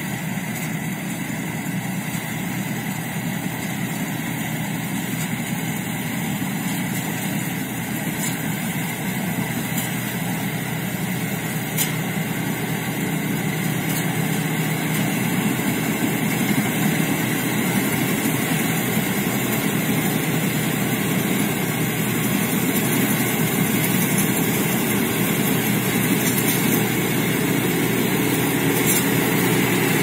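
Rice combine harvester running steadily with its engine and threshing machinery going, growing gradually louder as it comes closer.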